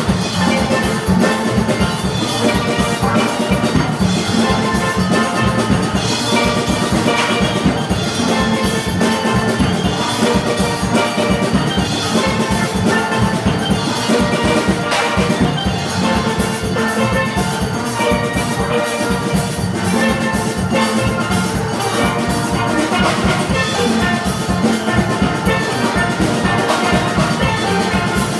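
Steel orchestra playing a tune on steelpans, many ringing pitched notes at once, with drums keeping a steady driving beat underneath.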